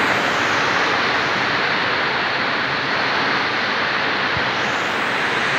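Heavy rain pouring down together with muddy floodwater rushing down a bank like a small waterfall: a steady, dense hiss of water.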